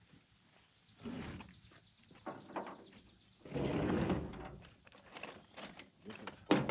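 Metal tools and parts being handled. A quick run of light, even clicks comes first, then a louder scraping rattle, then scattered sharp knocks, the loudest near the end.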